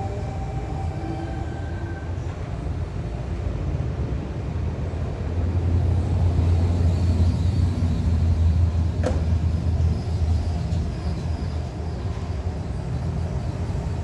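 Double-deck electric suburban train running past a platform: an electric motor whine rises and fades in the first couple of seconds, then a low, steady rumble of wheels on rail, loudest in the middle, with one sharp click about nine seconds in.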